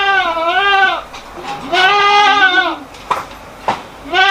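A goat bleating twice, each call about a second long and wavering in pitch, with a third call starting right at the end.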